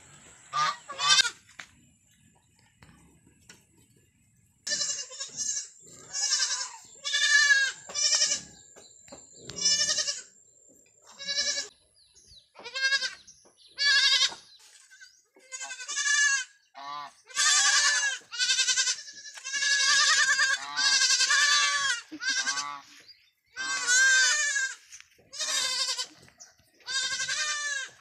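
Goat kids bleating over and over, one call about every second, after a short lull early on.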